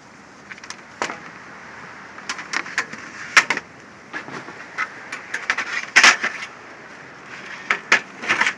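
Irregular knocks and clanks of scrap being handled and stacked, a dozen or so hits, some with a short ring, the loudest about three and a half seconds and six seconds in.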